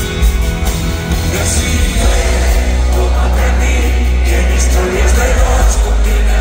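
Live band playing a song, with drums, bass guitar, electric guitar and saxophone under a male lead voice singing. The deep bass is very strong.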